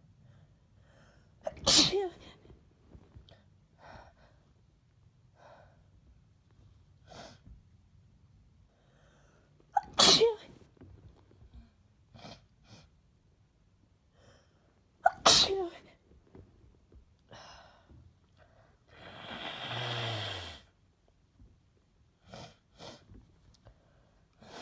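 Three loud sneezes from a man with flu and heavy congestion: one near the start, one about ten seconds in, and one about fifteen seconds in. Each is a sharp burst with a short voiced cry. Quiet short breaths come between them, and a longer breathy rush of air lasts about a second and a half, about twenty seconds in.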